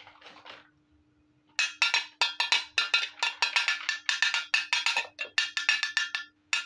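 Rapid metallic clinking from a small thin tin toy plate being handled and tapped, several sharp ringing clinks a second, starting about a second and a half in, and one more clink near the end.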